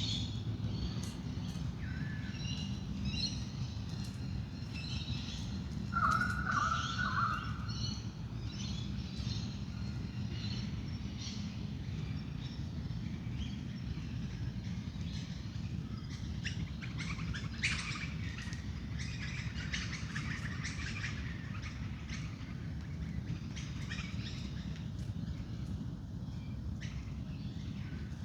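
Dawn chorus of many wild birds chirping and calling, with one louder call of a few quick falling notes about six seconds in, over a steady low rumble.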